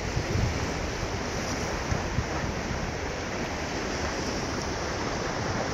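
Ocean waves washing steadily on the shore, with gusts of wind noise on the microphone.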